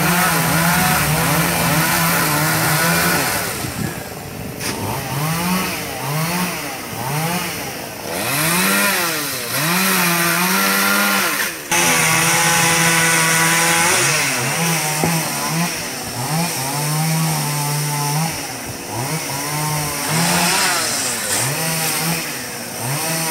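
Two-stroke chainsaw running at high speed for a few seconds, then revved up and down over and over. About halfway through it holds high speed again briefly, then gives short throttle blips with drops back to idle until the end.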